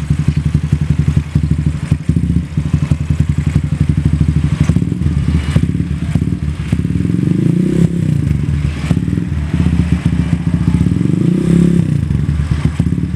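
Honda GL single-cylinder four-stroke motorcycle engine idling with a fast, even putter through a newly fitted aftermarket racing exhaust (knalpot racing), the carburettor re-set to suit it. The throttle is blipped twice, about seven and eleven seconds in, the note rising and falling each time.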